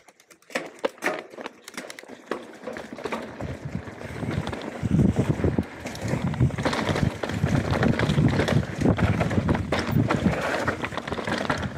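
Full-suspension mountain bike setting off down a dirt trail. There are scattered clicks and knocks at first, then tyre noise and rattling from the bike build up from about three seconds in and stay loud as it picks up speed.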